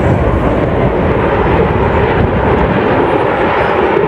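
Jet engines of a low formation flypast, a large airliner escorted by military jets, making a steady, loud roar.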